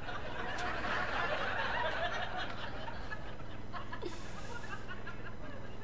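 Comedy club audience laughing, a big laugh that swells about a second in and then slowly dies down.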